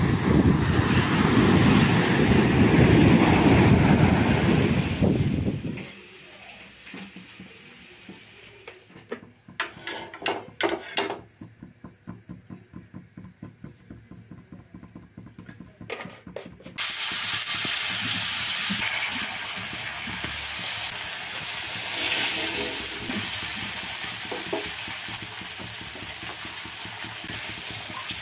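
Waves washing up on a beach for the first few seconds, then a quieter stretch with a few sharp metallic clinks. Then a steady sizzle starts suddenly and runs on: masala-coated fish frying in bubbling oil on a hot tawa.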